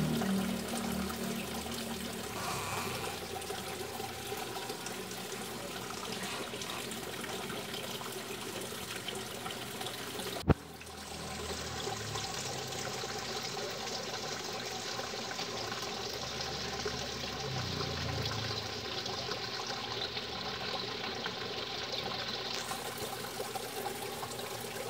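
Steady trickling and splashing water at the surface of a koi fry pond, where the fry churn around a block of frozen daphnia. One sharp click about ten seconds in.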